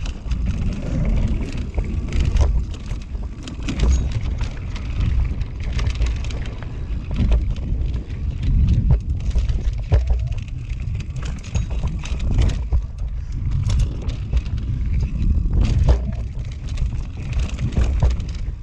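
Norco Range carbon enduro mountain bike descending a rough dirt trail at speed: a steady low rumble of tyres on dirt with wind buffeting the camera microphone, and frequent sharp clicks and clacks of the chain and frame rattling over roots and bumps.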